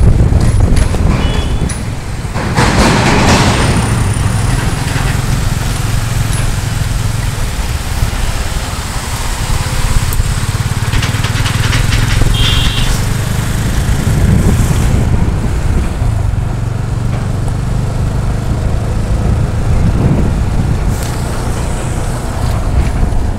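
Motorcycle engine running steadily under way, with wind and road noise and heavy trucks close by. A brief loud hiss about three seconds in.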